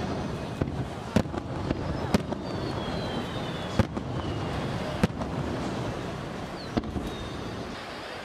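Aerial firework shells bursting: about seven sharp, irregular bangs, some under a second apart and others a second or more, over a steady background haze. A faint falling whistle comes near the middle.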